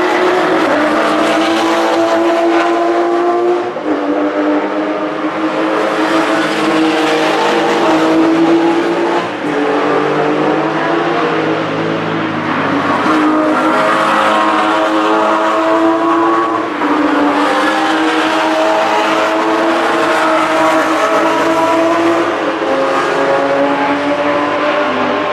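Porsche sports car engines at a race track running hard, each climbing in pitch and then dropping sharply at an upshift, several times over.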